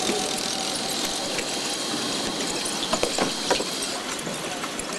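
Steady factory-floor noise inside an airliner fuselage under assembly: an even hiss with a faint high whine. A few sharp clicks and knocks come about three seconds in as workers handle the interior panels.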